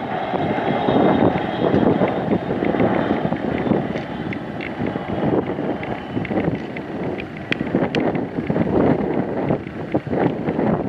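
Wind buffeting the microphone over the rumble of an Embraer ERJ-145-family regional jet's turbofans as it touches down and rolls out. A faint high engine whine fades over the first half.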